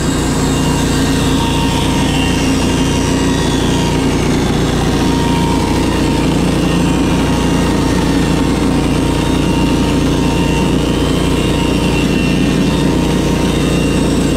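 Engine of a Norwood HD36V2 portable bandsaw mill running steadily at high speed, loud and unbroken.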